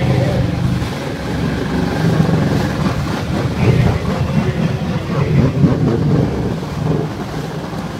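Jet ski engine running hard, its pitch rising and falling as the craft spins and carves, with water churning and spraying.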